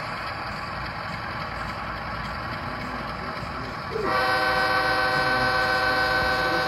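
HO-scale model diesel locomotive's sound decoder blowing its horn: one long, steady horn chord that starts about four seconds in, over a steady low hum.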